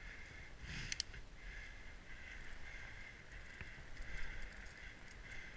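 Fat bike rolling over a packed-snow trail: steady, uneven tyre-on-snow and ride noise with low rumble, and one sharp click about a second in.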